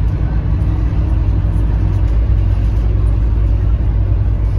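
Scania K310UB bus's five-cylinder diesel engine running, heard from inside the passenger cabin as a steady low rumble.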